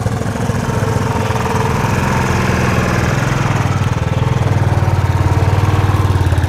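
Royal Enfield single-cylinder motorcycle engine running with a fast, even beat, growing louder about two seconds in as the bike is ridden over a rough, rocky dirt track.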